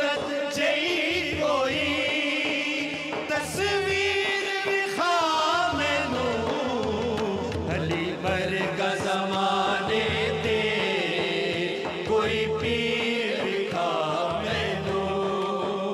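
Male vocal group singing a Punjabi manqabat in praise of Ali, with long, wavering, ornamented melodic lines over a steady low backing.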